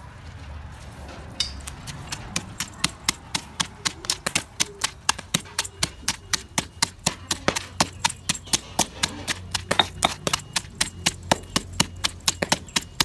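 Stone pestle pounding chopped chilies in a stone mortar: a steady rhythm of sharp knocks, about four a second, starting a little over a second in.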